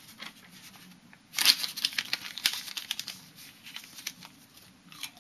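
Paper banknotes being crinkled and torn by hand, a dense crackling that starts about a second and a half in and thins out over the next couple of seconds.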